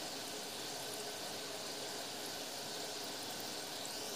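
Gulab jamun balls deep-frying in hot oil in an iron kadai, with a steady, even sizzle.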